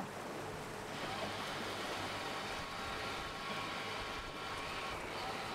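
Steady sea ambience from a boat: waves washing and breaking against rocks, with wind.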